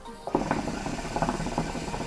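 Amy Deluxe shisha (hookah) bubbling in its water base as smoke is drawn through the hose: a fast, steady, irregular gurgle that starts a moment in.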